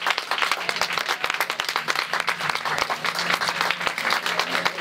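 Congregation applauding: many hands clapping steadily and irregularly at the close of a sermon.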